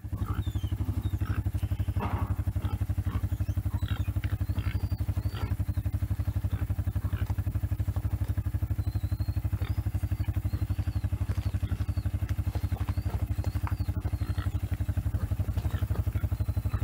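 Yamaha four-wheeler's engine idling steadily, with light clatter and a few high chirps over it.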